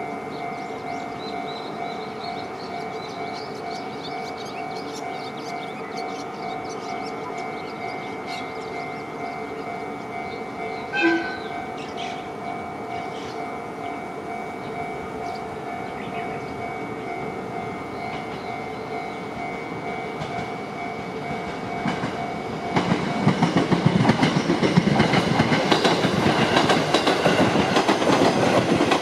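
Level-crossing warning bell ringing in a steady repeating tone. About eleven seconds in, an approaching train gives one short horn blast. About twenty-three seconds in, the train reaches the crossing and passes over it loudly, drowning out the bell.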